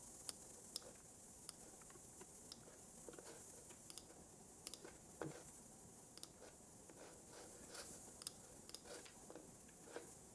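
Faint, irregular clicks of a computer keyboard and mouse: slow, scattered keystrokes and clicks, about two a second, over a soft steady hiss.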